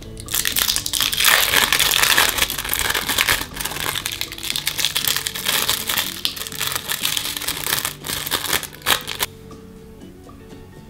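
Clear plastic film of an individually wrapped cheese stick crinkling as it is torn open along its tear strip and peeled off. The crinkling starts about half a second in and stops about nine seconds in, with light background music underneath.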